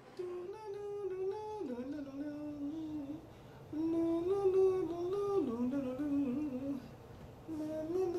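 A man humming a slow tune of long held notes that step up and down in pitch, in a few phrases with short pauses about three and seven seconds in.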